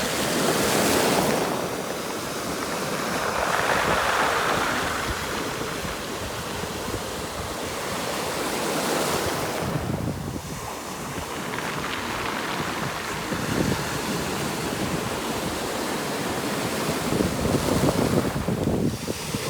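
Sea waves washing over a stony beach, surging in several times, with wind buffeting the microphone.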